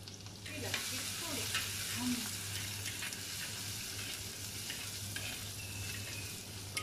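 Crushed ginger, garlic and green chilli sizzling in hot oil in a clay pot, stirred with a steel spoon that scrapes and clicks against the pot. The sizzle swells about half a second in, over a low steady hum.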